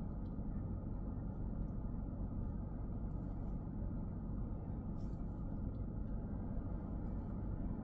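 A car on the move: steady low road and engine rumble, with a few faint ticks.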